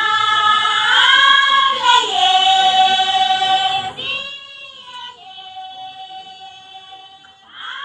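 Voices singing long held notes that change pitch slowly every second or two; about four seconds in, the singing drops much quieter, then swells again near the end.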